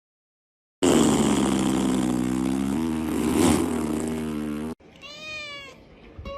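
A loud, steady mechanical drone with a low hum runs for about four seconds and cuts off abruptly. A cat then gives one meow, falling in pitch.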